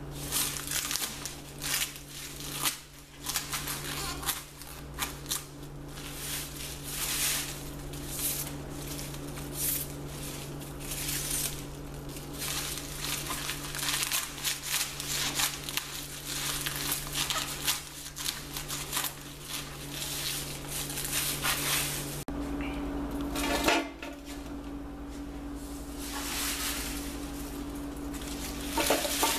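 Lemongrass stalks rustling and scraping on a plastic cutting board as dead leaves are cleaned off them by hand, in many short irregular strokes. About two-thirds of the way through comes a short knock from the aluminium pressure-cooker pot as stalks are laid in it.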